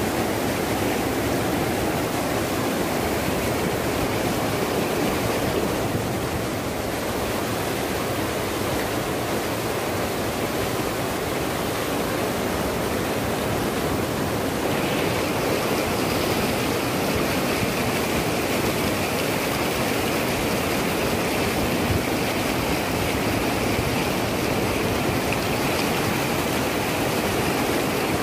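Swollen, muddy river in flood rushing over and around boulders: a steady, heavy water noise that turns brighter about halfway through.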